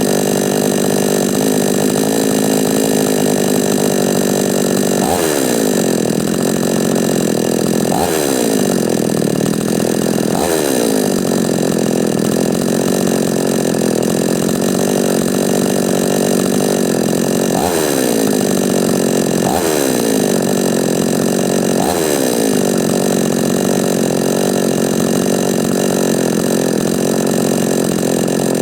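A Chinese 45cc two-stroke chainsaw, freshly re-ringed, runs steadily at idle. Its throttle is blipped six times, and each time the revs jump and then fall back to idle.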